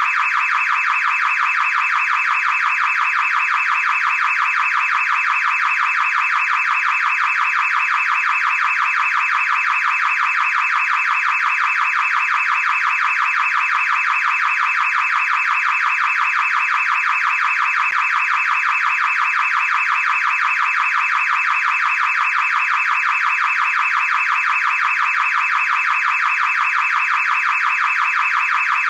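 Car alarm siren sounding without a break: a loud, rapidly warbling electronic tone that holds steady and never pauses.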